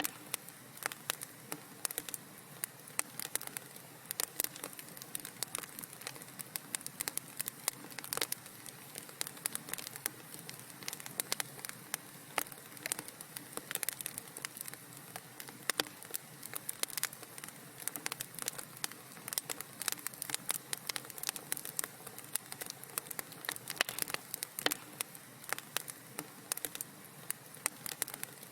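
Wood fire crackling in a fireplace: dense, irregular pops and snaps over a steady soft hiss.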